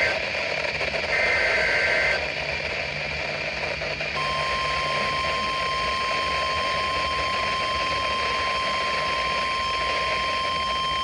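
NOAA Weather Radio emergency alert: a SAME digital header burst, a harsh two-tone data screech about a second long, about a second in, then radio hiss. At about four seconds the steady single-pitch warning alarm tone (the 1050 Hz tone) starts and holds. It signals that a warning message is about to be read.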